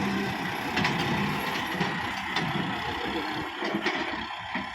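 Kubota MU5501 tractor's diesel engine running steadily, with a few short knocks.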